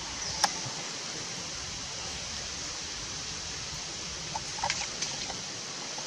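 Steady high-pitched outdoor hiss, with one sharp click about half a second in and a few brief chirps a little after four seconds.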